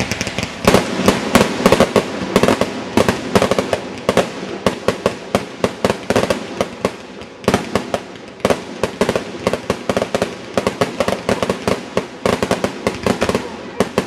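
Fireworks going off in a rapid barrage of sharp cracks, several a second, that stops abruptly near the end.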